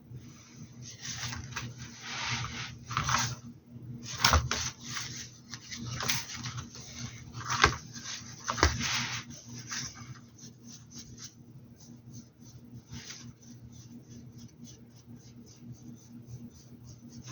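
Paintbrush and painting-tool handling sounds: scrubbing brush strokes with a few sharp taps, then a run of short, quick strokes at about three to four a second.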